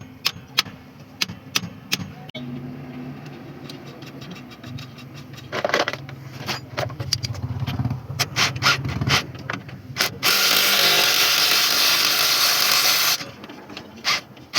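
Workshop tool noise during a school bus leaf spring repair: a run of sharp metal knocks and taps, then, about ten seconds in, a loud steady rushing noise from a tool that lasts about three seconds and cuts off suddenly.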